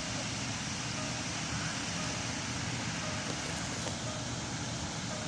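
Land Rover LR4 engine running with a steady, unchanging noise, in a car with a rough-idle and overheating complaint.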